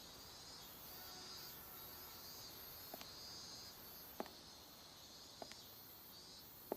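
Near silence: a faint, high, pulsing chirr like insects at night, with four soft clicks spaced about a second apart.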